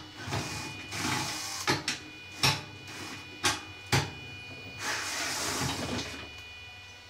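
Cordless drill-driver whirring in two runs of about a second and a half, backing screws out of a vintage Maytag dryer, with several sharp metal clicks and knocks in between.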